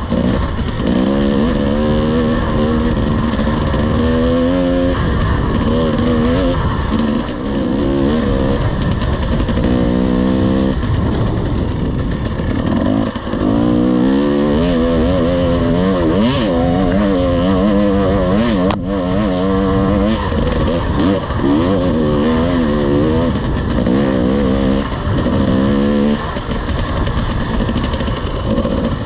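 Dirt bike engine under hard riding, its pitch climbing and falling again and again with throttle and gear changes, with short drops off the throttle every few seconds. A single sharp knock sounds about two-thirds of the way through.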